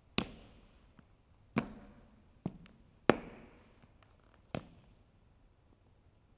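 Hard-soled dress shoes striking a stage floor as a cadet marches forward: five sharp heel strikes, each with a short echo, the last about four and a half seconds in as he halts.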